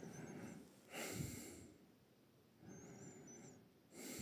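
A person breathing close to the microphone: slow breaths in and out, the strongest about a second in and again near the end.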